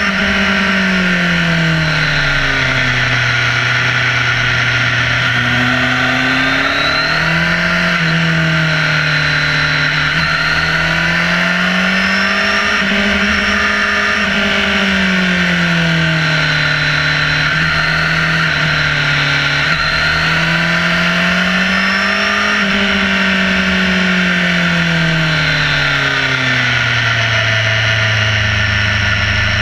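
Sport motorcycle engine heard close up from a camera on the fairing, its pitch climbing and falling in long swells every few seconds as the rider accelerates and rolls off through bends, settling low and steady near the end. A steady rush of wind noise runs under it.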